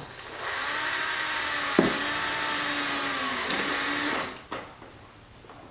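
Cordless drill running at a steady whine as it bores a small pilot hole through a C7 Corvette's rear bumper, starting about half a second in and stopping a little after four seconds. A single sharp knock comes about two seconds in.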